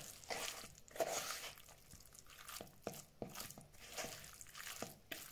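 Chunks of cod being mixed by hand into a thick gram-flour batter: faint, irregular wet squelches with light clicks, several a second.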